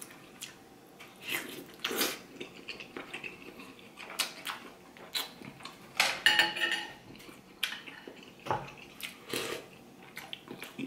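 Eating sounds from soup dumpling and broth: short wet slurps and chewing, with a metal spoon clinking and scraping on a ceramic plate. The loudest slurp comes about six seconds in.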